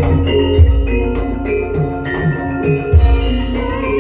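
Live Javanese gamelan music: metallophones and kettle gongs ringing in steady interlocking notes, with deep low strokes about half a second in and again at about three seconds.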